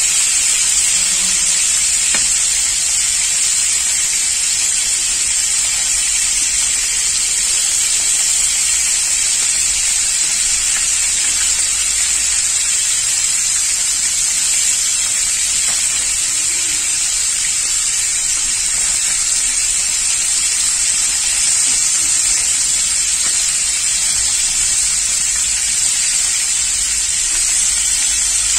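Pieces of scad fish frying in hot oil in a pan: a steady, even sizzle.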